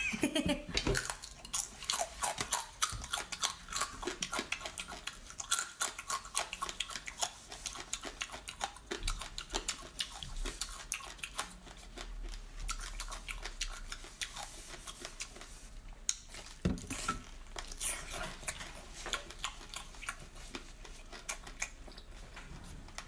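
Chewing and biting into a whole cooked octopus coated in chili oil, with many short mouth clicks in quick succession.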